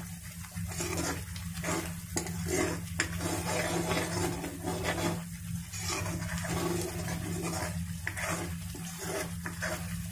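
Metal spatula stirring and scraping a spiced onion-tomato masala paste around a kadhai, with the paste and oil sizzling as it fries. The strokes come irregularly throughout.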